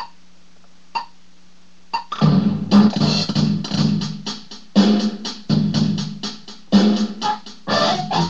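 A steady low hum with three count-in clicks about a second apart, then a drum-machine beat with electric guitar played through a multi-effects foot pedal.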